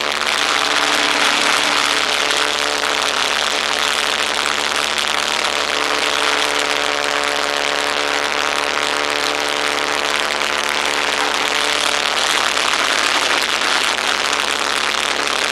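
Boeing-Stearman Model 75 biplane's radial engine running steadily in flight, with strong wind rushing over the wing-mounted microphone.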